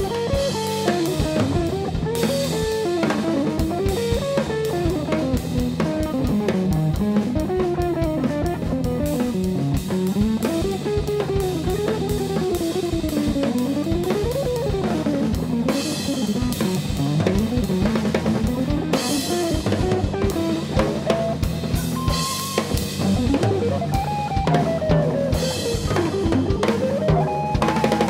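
Hollow-body electric guitar playing a quick single-note melodic line that climbs and falls, over a drum kit keeping time with cymbals, bass drum and rim clicks.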